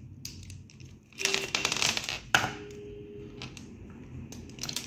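Rustling and clicking from a string of decoration lights, twisted wire and plastic bulbs, being handled and moved about. A burst of rustling comes about a second in, then a single sharp click.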